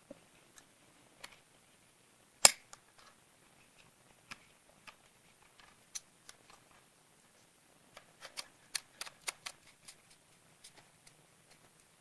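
Plastic ball joint of a flexible clamp phone mount being pushed in and handled: scattered sharp clicks and knocks, with one loud snap about two and a half seconds in and a quick run of clicks near the end.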